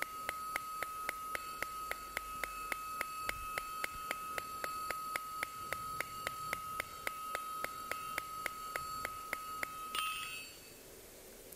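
Light, rapid hand-hammer taps on a hot 8 mm round mild steel bar against an anvil, about four a second, with the anvil giving a steady high ring under them. The bar is being turned and tapped all round to bring the tapered point to a round section. The tapping and ringing stop about ten seconds in.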